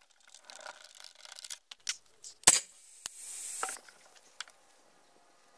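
Handling noises: faint rubbing and light clicks, one sharp click about two and a half seconds in, then a short hiss lasting under a second.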